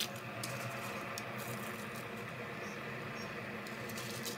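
Pot of spiced water at a rolling boil on a gas stove, giving a steady bubbling hiss, with faint patters as handfuls of rice drop into it.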